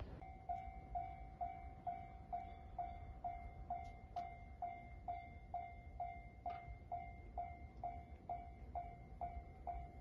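Japanese railway level-crossing alarm ringing its electronic 'kan-kan' bell tone over and over, about two strokes a second: the crossing is down for an approaching train.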